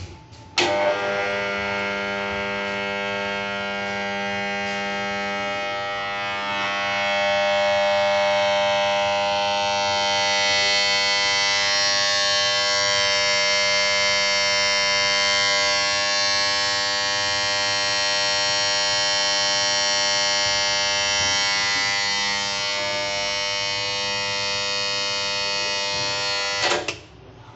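Contactor in a single-phase submersible pump starter pulling in with a click and then buzzing loudly and steadily for about 26 seconds, before cutting off suddenly with a click near the end. The loud buzz is the starter noise fault being shown.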